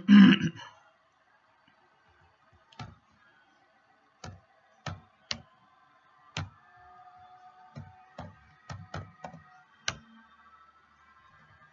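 Computer keyboard keystrokes: about a dozen separate clicks at an unhurried, uneven pace as a short word is typed. A brief burst of speech comes at the very start.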